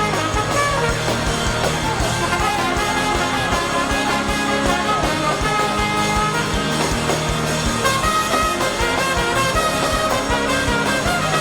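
Live church praise band playing an upbeat gospel song with a steady drum beat.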